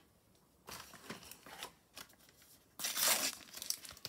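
Paper rustling and tearing as a Panini sticker packet is ripped open and the stickers inside are handled, in irregular bursts with the loudest tear about three seconds in.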